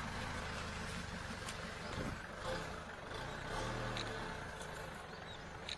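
Vehicle engine idling, a faint, steady low hum.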